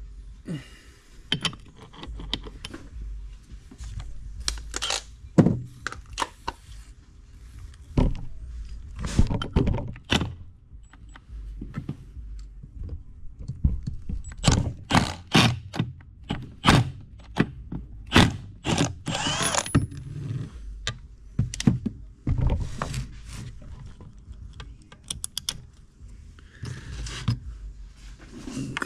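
Metal engine parts and hand tools clinking, knocking and scraping during hands-on disassembly of a Yamaha YZ250F engine on a wooden workbench. The sharp knocks come at irregular moments.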